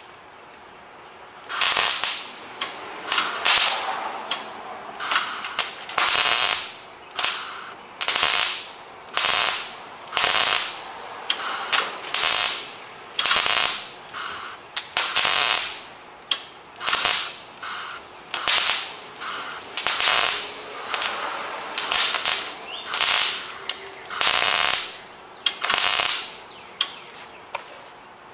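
Miller 251 MIG welder's arc crackling in a long series of short bursts, a little more than one a second, starting about a second and a half in: a hole in 16-gauge body sheet steel being filled with 0.023 wire at a low heat setting, the trigger pulsed to keep heat and warping down.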